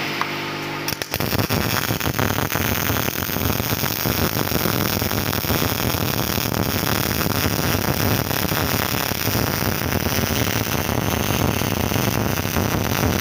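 MIG welding arc crackling steadily as a bead is run on steel tube. It strikes about a second in and burns without a break after that.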